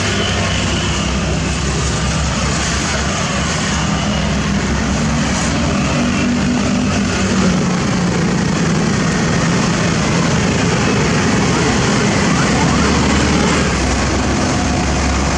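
Diesel engines of asphalt paving machinery running steadily: a loud, constant engine drone with a low hum under a wash of mechanical noise.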